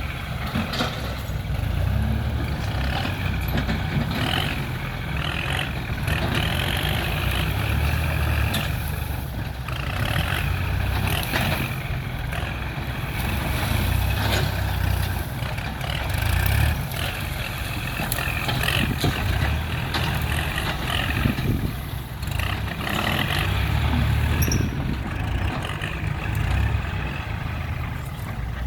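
Heavy diesel earthmoving machinery at work, its engine rising and falling under load, with scattered clanks and hissing.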